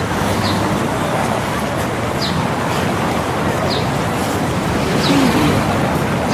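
City street ambience: a steady wash of traffic noise, with a bird chirping briefly about every second and a half, four times.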